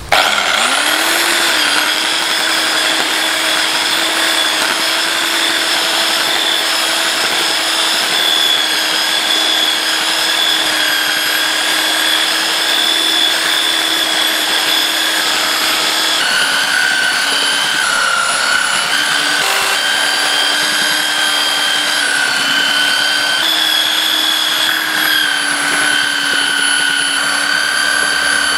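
Handheld electric belt sander starting up and running steadily, sanding the end-grain face of a jacaranda log slice. Its whine rises as it spins up, then holds steady, dipping slightly in pitch a couple of times as it is pressed into the wood.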